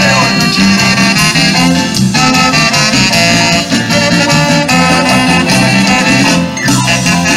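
Loud Latin dance music with brass over a steady, repeating bass line.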